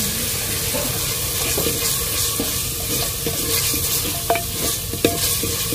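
Wooden spoon stirring and scraping onion-tomato masala in a clay pot, over a steady sizzle of the masala frying in oil. A couple of sharp knocks of the spoon against the pot near the end.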